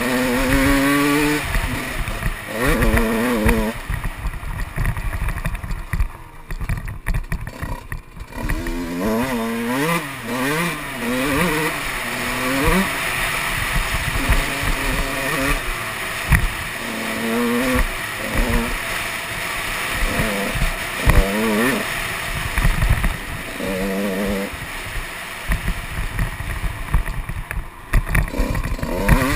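Motocross dirt bike engine revving hard and easing off again and again as it is ridden round the track, its pitch climbing and dropping with each burst of throttle, and quieter for a few seconds near the start. Constant low rumble and rushing noise underneath.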